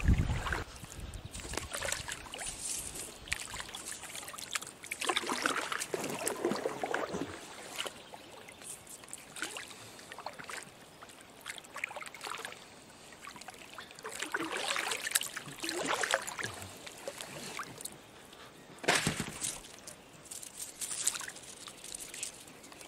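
Oars of an inflatable rubber boat dipping and pulling through lake water: irregular splashing strokes a few seconds apart, with water dribbling off the blades. Two low thumps, near the start and near the end.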